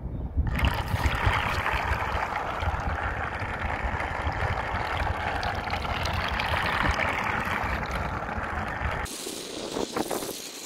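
Propeller of a small 3D-printed vacuum-powered model boat churning and splashing at the water surface, not fully submerged, with wind rumbling on the microphone. The splashing starts about half a second in and stops abruptly near the end.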